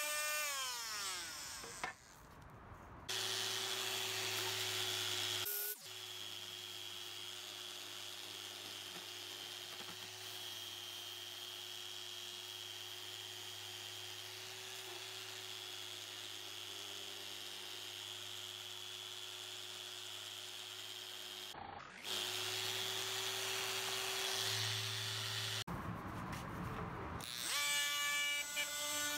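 Power sanders working rusty pressed steel. An oscillating multi-tool's whine falls away over the first two seconds. A round-pad electric sander then runs at a steady hum while a steel panel is pressed against it, and the multi-tool whines again near the end.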